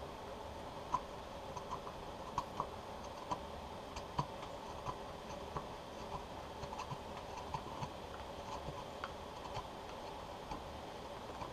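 Spoon gouge cutting shavings from the inside of a burl kuksa cup, taking down a high spot: irregular small wooden clicks, about one a second.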